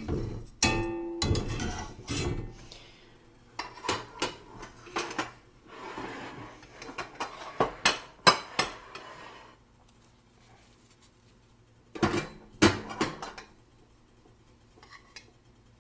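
Metal kitchen utensils knocking and clinking against cast iron cookware. There is a run of clanks, one ringing briefly about a second in, then a pause of a couple of seconds and a few more clanks near the end.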